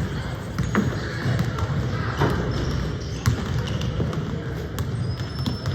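Indoor basketball game: a ball bouncing on the court in a few sharp knocks, over a steady echoing crowd murmur with brief sneaker squeaks.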